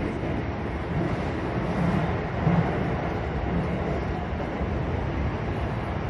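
Toei Shinjuku Line 10-300 series subway train running between stations, heard from inside the passenger car: a steady low rumble of wheels on rail, with a few heavier swells partway through.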